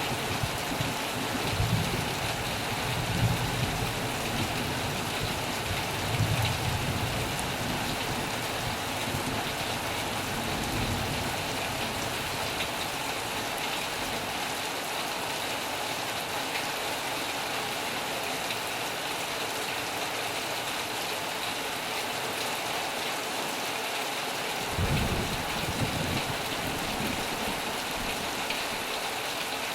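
Heavy rain falling on a metal roof, a steady hiss, with low rumbles of thunder through the first ten seconds or so and once more briefly near the end.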